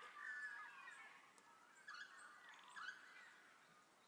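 Faint bird chirping in the background: short, warbling calls that come and go over near silence.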